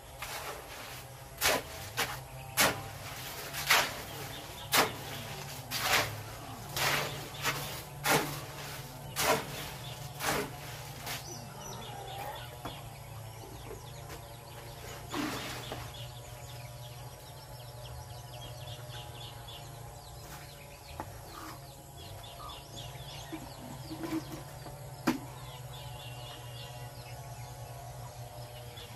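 About ten sharp strikes, roughly one a second, during the first eleven seconds, then birds chirping faintly over a steady low hum.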